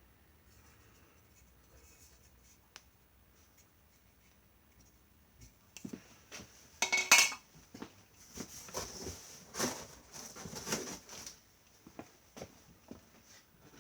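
Hard parts and packaging being handled: scattered clicks and knocks, a sharp clatter about seven seconds in, then rustling. The vacuum motor is not running.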